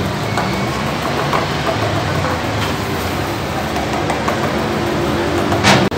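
Steady low machine hum, with a short sharp knock just before the end.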